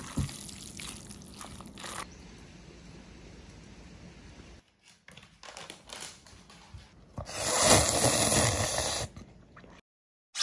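Kitchen cooking sounds with liquid noise: a couple of sharp knocks at the start, then a low steady hiss, and a louder rushing noise from about seven to nine seconds in that stops just before ten seconds.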